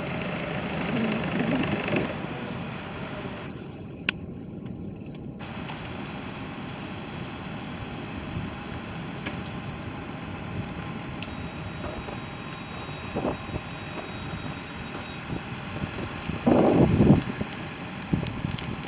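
Tracked snow groomer's engine running steadily, with wind noise on the microphone. A short, louder burst of noise comes near the end.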